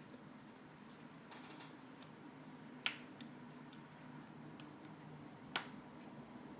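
Small sharp clicks of a hand tool working on an iPhone 4S's internal parts: two clear clicks, about three seconds and five and a half seconds in, with a few fainter ticks between, over a faint steady low hum.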